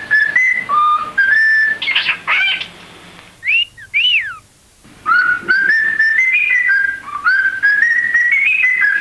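Pet cockatiel whistling a learned tune in clear, stepping notes. Partway through, it breaks off into a few short, sharp calls that rise and fall, then takes up the tune again.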